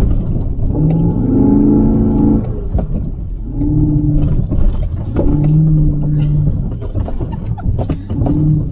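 An off-road vehicle's engine revving in repeated bursts, each held at a steady pitch for up to a second and a half, four times over.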